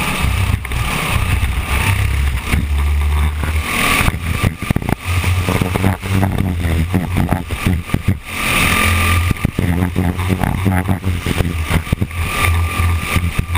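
Engine of a small winged dirt-track race car heard from the onboard camera at racing speed, its pitch rising and falling as the throttle is lifted through the turns and opened again, with wind and jolts buffeting the camera microphone.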